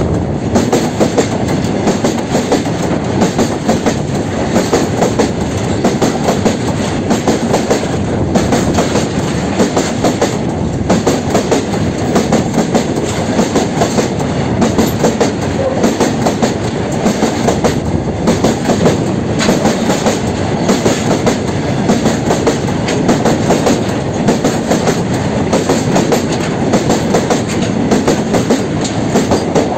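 Fully loaded freight train of covered goods wagons passing close at speed: a steady, loud rumble of steel wheels on rail with a rapid, continuous clickety-clack.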